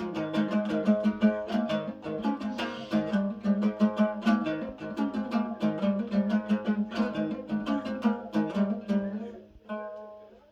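Music on a plucked string instrument: a fast, even strummed tune that thins out and quietens about nine seconds in, ending with a few separate plucked notes.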